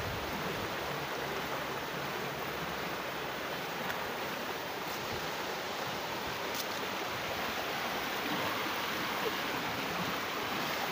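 River rapids: water rushing and churning over and around boulders, a steady rush that holds without change.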